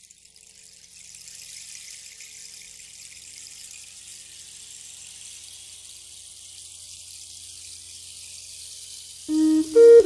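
A steady high hiss of running water fades in and settles about a second in. Near the end a flute starts playing sustained notes.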